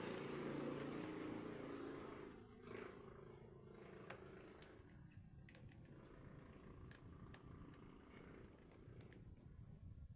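Faint handling noise, then scattered small plastic clicks, as a smartphone's back cover is pried open.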